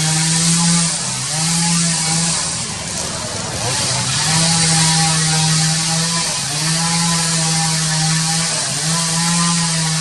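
Small engine running at high revs, a steady drone that drops briefly and picks up again every couple of seconds, over a steady high hiss.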